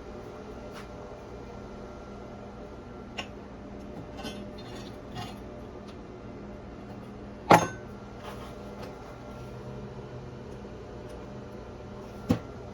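A few sharp metal clinks and taps over a steady low hum, the loudest about halfway through and another near the end, as stainless steel weld pieces are handled and cleaned of flux-core slag.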